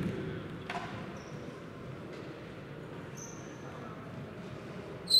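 Sneakers squeaking on a hardwood gym floor: a couple of short high squeaks, then a louder one right at the end, over the steady hubbub of a large sports hall. There is a single thud about a second in.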